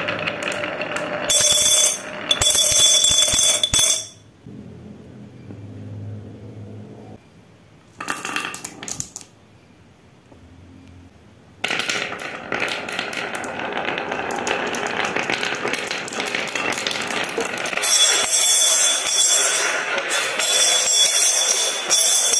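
Marbles rolling and clattering down a marble run, a dense stream of clicks and rattles. There are loud bursts of rattling about a second in and again near the end, and a quieter stretch in the middle.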